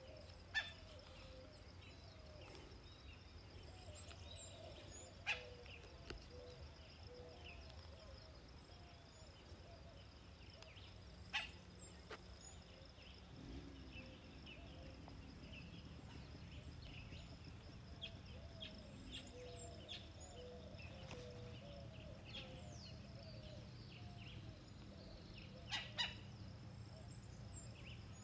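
Faint rural outdoor ambience: birds calling in short, low chirps over a steady high insect buzz. A few sharp clicks stand out, about every five or six seconds early on and twice close together near the end.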